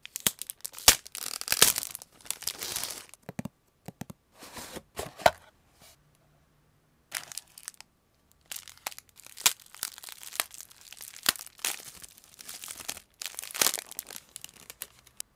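Clear plastic wrapping being torn off a small cardboard box, then clear plastic bags crinkling as they are handled: a run of sharp crackles and rustles, with a short pause about six seconds in.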